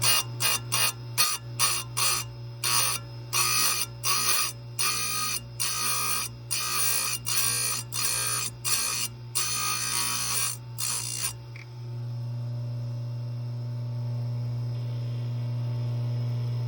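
Chain grinder's motor running steadily as its wheel square-grinds saw chain cutters in a quick series of short, light taps, roughly one or two a second. Near the end the taps stop and only the motor's hum is left.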